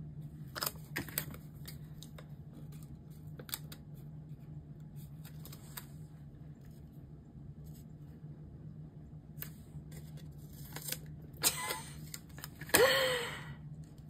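Faint handling sounds of paper stickers and planner pages: scattered small clicks and taps, with a louder rustle near the end, over a steady low hum.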